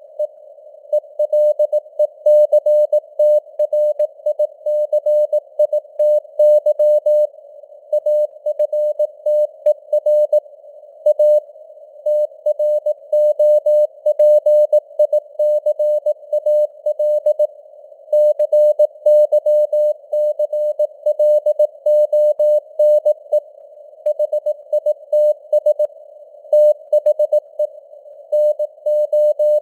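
Morse code sent at 18 words per minute: a single mid-pitched beeping tone keyed on and off in dots and dashes, over a narrow band of hiss like a receiver's CW filter passing simulated radio noise.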